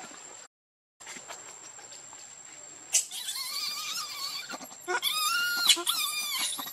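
Baby macaque crying: after a quiet start, a string of high, wavering screams with short breaks begins about three seconds in and grows louder toward the end.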